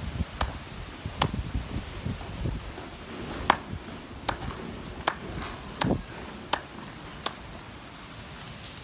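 A series of sharp taps, roughly one a second, from hands striking each other while signing.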